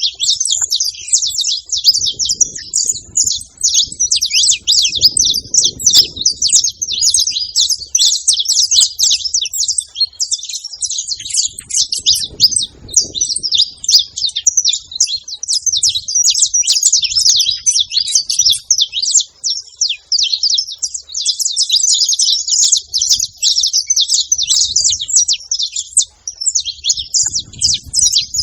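A group of saffron finches chirping without pause, many quick high notes overlapping.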